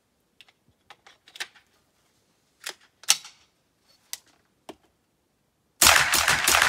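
Metallic clicks and clacks of a magazine going into an AR-15 and the action being worked, then, near the end, a quick string of suppressed .22 LR rifle shots from a blowback conversion upper, ringing off the walls of a small indoor range.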